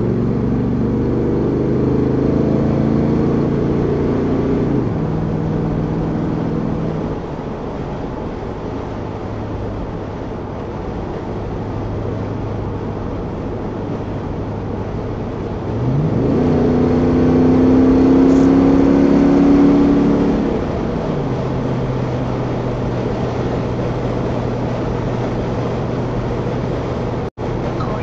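The 1968 Chevelle Nomad wagon's engine running on the road, with a haze of road and wind noise. The engine note falls away about five seconds in. It climbs louder and higher as the car accelerates about sixteen seconds in, then drops back about four seconds later.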